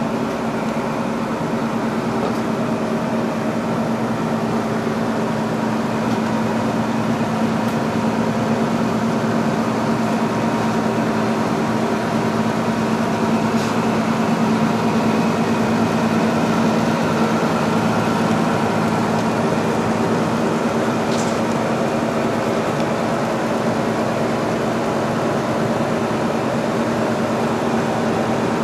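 Steady mechanical hum made of several fixed tones, unchanged throughout, with two faint ticks, one midway and one about three-quarters through.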